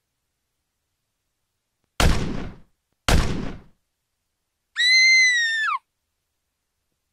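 Two gunshots about a second apart, each dying away quickly, then a woman's high-pitched scream lasting about a second and dropping in pitch at the end.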